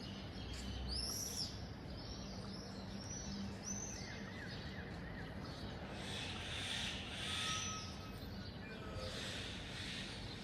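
Birds chirping, with a run of short high chirps in the first few seconds and a brief trill about four seconds in, over a steady low hum of city background noise.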